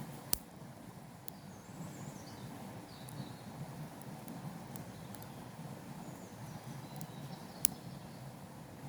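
Outdoor ambience: a steady low rush with faint, brief bird chirps, broken by two sharp clicks, one just after the start and one near the end.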